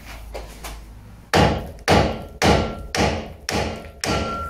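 Hammer blows on metal at the car's front suspension: six strikes about two a second starting about a second and a half in, each with a short metallic ring, as the suspension hub parts are knocked free.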